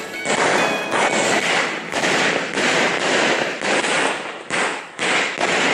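Fireworks and firecrackers going off in a dense, continuous crackling and popping, with a short lull about four and a half seconds in.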